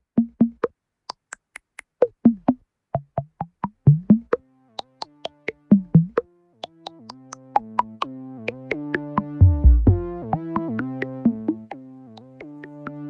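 Electronic background music. For the first half it is sparse, short synth plucks and drum-machine hits; from about halfway, sustained synth chords and a bass line come in.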